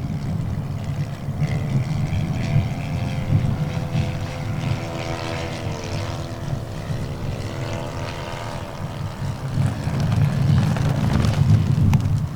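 The 85 cc four-stroke engine of a 1:3 scale SPAD S.XIII model biplane running at low throttle, its pitch dropping about five to six seconds in, under heavy wind buffeting on the microphone that swells again near the end.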